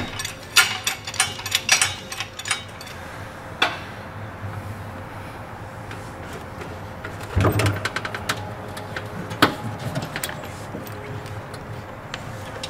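Chain clinking and metal knocks as a bare GM 6.2L V8 engine block is lowered on an engine hoist chain onto a wooden cradle in a pickup bed. A quick run of clinks comes in the first two seconds, then single knocks and a cluster of knocks about seven and a half seconds in, over a steady low hum.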